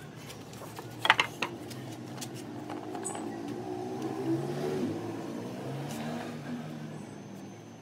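A few sharp wooden knocks about a second in as the frame pieces are handled, then a steady engine hum that swells a little in the middle and fades near the end.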